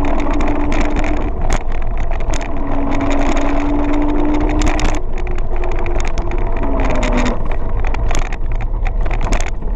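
Kaabo Wolf King GT electric scooter riding at speed: wind rushing over the microphone and road rumble, with a thin steady whine from the hub motors that fades in and out and steps down a little in pitch about seven seconds in, and frequent short crackles.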